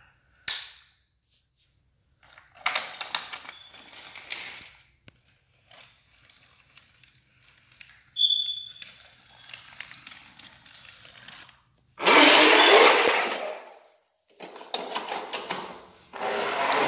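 Toy trains and pieces being handled: bursts of clattering and rustling with sharp clicks, the loudest a dense rustle about twelve seconds in, and a brief high squeak about eight seconds in.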